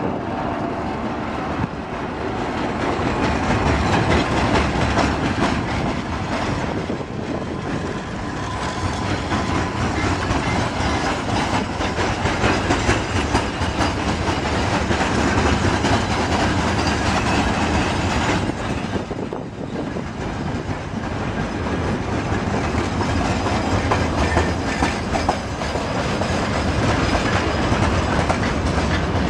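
Empty timber wagons of a long freight train rolling past close by: a steady rumble with wheels clacking over the rail joints.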